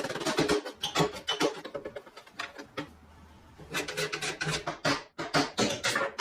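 Irregular clicks and scraping strokes of hand tools working metal parts of a rusty lock, thinning out for a moment midway and then picking up again in quick strokes.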